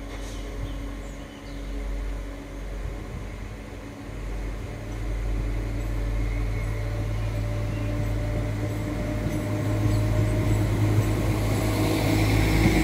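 Class 172 Turbostar diesel multiple unit's underfloor diesel engines humming as the train rolls slowly into the platform, growing louder as it draws alongside.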